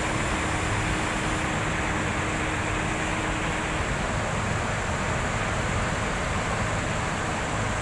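Steady, even rushing background noise with a faint low hum, the ambience of a bus depot with coaches standing about. There are no distinct knocks or events, and the high hiss shifts slightly about a second and a half in.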